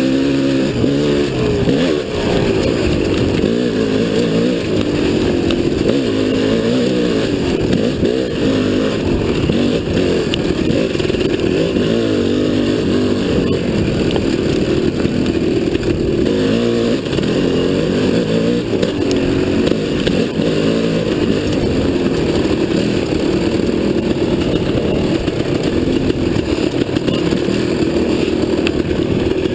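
Dirt bike engine heard from the rider's seat, running continuously, its pitch rising and falling again and again as the throttle is opened and closed.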